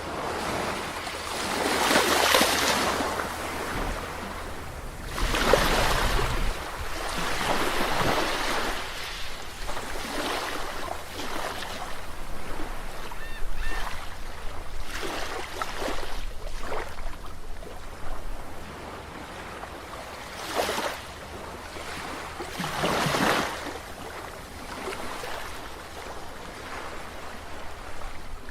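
Ocean surf: waves breaking and washing in, one surge every few seconds over a steady low rumble, the loudest around two and five seconds in.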